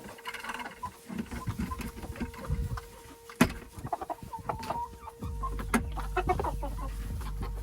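Chickens clucking with scattered short calls and small knocks. About five seconds in, a steady low hum sets in underneath.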